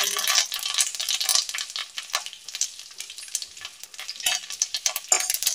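Tadka in a kadhai: curry leaves and mustard seeds spluttering in hot oil, a steady sizzle dotted with many sharp crackling pops, a little louder near the end.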